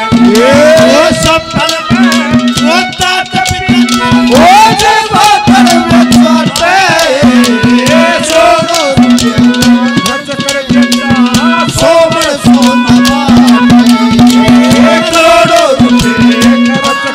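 Haryanvi ragini folk ensemble playing an instrumental passage: a melody with sliding, wavering notes over a low note that keeps returning, driven by fast hand drums and rattling percussion.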